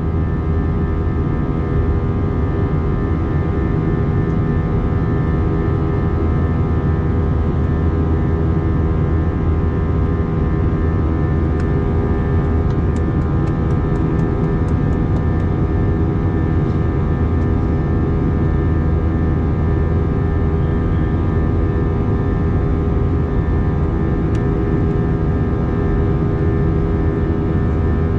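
Airbus A321 airliner cabin noise in flight: a steady engine and airflow rumble with fixed droning engine tones. There is a short run of faint ticks about twelve seconds in.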